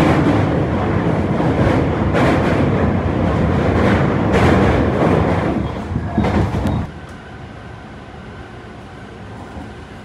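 Electric train running, a loud rumble with a few wheel clacks, which drops off abruptly about seven seconds in, leaving a quieter steady hum.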